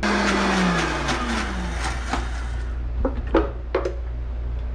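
High-speed blender running briefly on a thick cilantro chutney, its whine dropping in pitch, then stopping about two and a half seconds in. A few light knocks follow.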